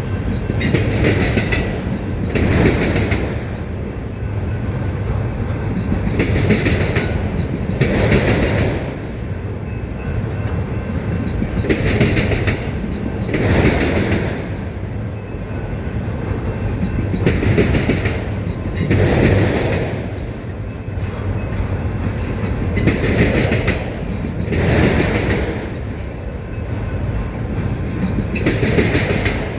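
Autorack freight cars rolling past, with a steady rumble. The wheels clack over the rail in pairs of beats, a pair about every five to six seconds.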